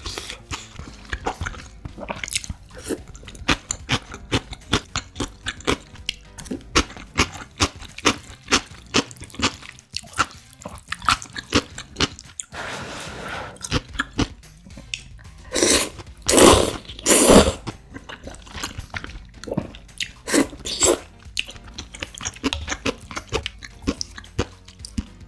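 Close-up eating sounds: crisp crunching and chewing of seasoned pickled radish and creamy instant noodles, with wet mouth clicks. A few long, loud slurps of noodles a little past the middle are the loudest sounds.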